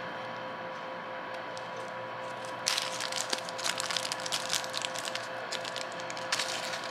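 Small clear plastic jewellery bag crinkling and crackling as fingers work it open, a run of quick rustles starting a little under halfway in and stopping shortly before the end, over a steady faint hum.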